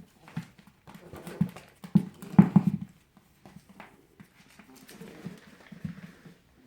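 Prague ratter puppy playing rough with a tennis ball: an irregular flurry of scuffles and light knocks, busiest about two to three seconds in.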